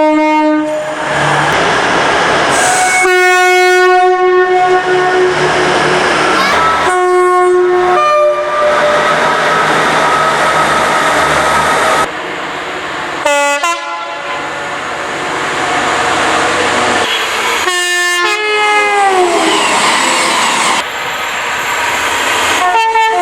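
A run of short clips of British train horns: locomotive and multiple-unit air horns sounding one after another, each held for a second or more over the noise of a passing train, the notes changing abruptly from clip to clip. About two-thirds of the way through, one horn note slides down in pitch as it dies away.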